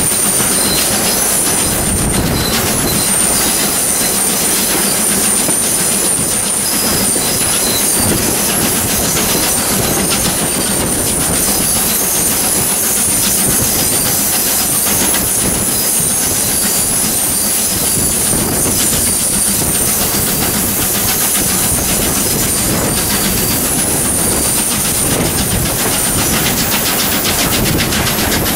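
Steam-hauled excursion train's carriage wheels clattering over the rail joints, loud and steady, with high-pitched wheel squeal coming and going.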